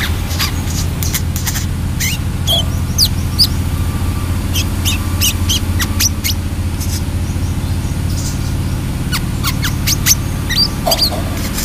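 Brown-throated sunbird giving sharp, high chirps and quick twittering notes, some sweeping up or down in pitch, in loose clusters with short gaps. A steady low hum runs underneath.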